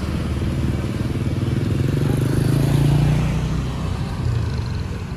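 A motor vehicle's engine passing close by on the road, getting louder to a peak about three seconds in and then fading.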